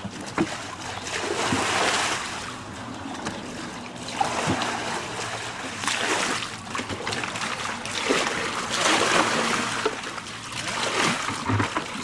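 Floodwater being bailed by hand with plastic buckets: repeated scooping and pouring, a bucketful splashing out onto standing water about every two seconds.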